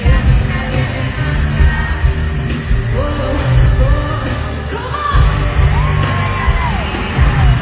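Loud live concert music in an arena, recorded from the crowd: a heavy bass beat with a sung vocal melody coming in about three seconds in, and yells from the audience.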